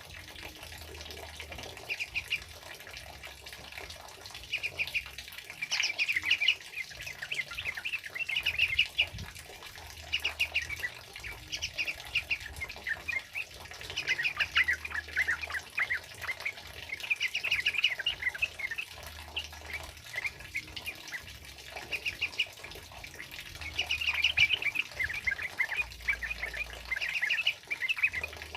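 Yellow-vented bulbuls (trucukan) singing in quick, chattering bouts every second or two, over a steady hiss of heavy rain.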